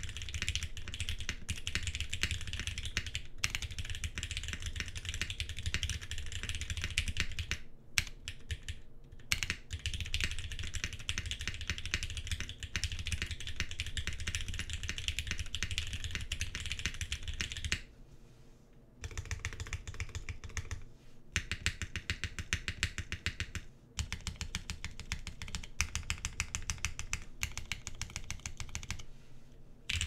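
Rapid, continuous typing on a Geonworks Frog tenkeyless mechanical keyboard: lubed Cherry MX Hyperglide black linear switches on a tadpole-mounted aluminium plate, with GMK Carbon keycaps, giving a slightly deep clack. The keystrokes stop briefly a few times, the longest pause lasting about a second about eighteen seconds in.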